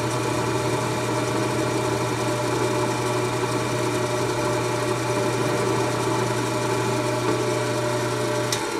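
Milling machine spindle running steadily, a 9/64-inch carbide end mill cutting into the steel receiver ring to enlarge a 6-48 scope base hole for 8-40 screws. Near the end the motor hum stops with a sharp click.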